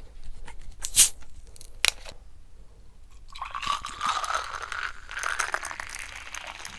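Plastic bottle of Chilsung Cider lemon-lime soda being opened, with a sharp hiss of escaping gas about a second in and a short click just before two seconds. It is then poured fizzing into a glass, the pouring sound rising in pitch as the glass fills.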